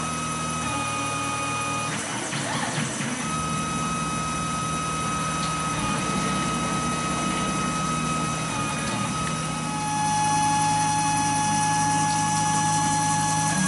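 Tormach 770 CNC mill machining a Glock 35's steel slide with a small end mill under flood coolant: a steady motor hum and coolant spray, with thin whining tones that jump in pitch every few seconds as the machine moves through the cut. It gets a little louder about ten seconds in.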